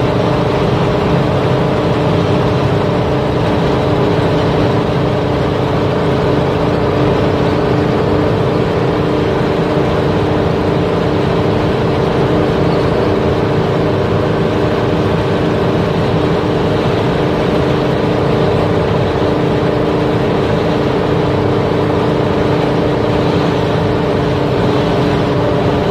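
1975 Ford Bronco's freshly rebuilt engine running at a steady highway cruise, heard from inside the cab, with an even wash of road and wind noise.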